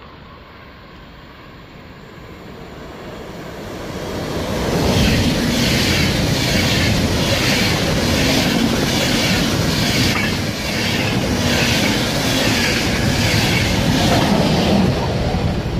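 Intercity train of IC coaches with a DB class 101 electric locomotive passing along the platform. The rumble and rush of wheels on rail build over the first few seconds, then stay loud with a rhythmic pulse about once a second as each coach goes by.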